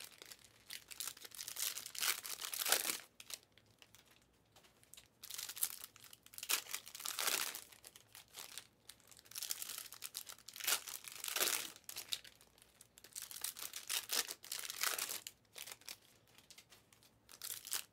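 Wrappers of Panini Mosaic Fast Break basketball card packs being torn open and crinkled: a run of short, uneven rips and rustles coming every second or two.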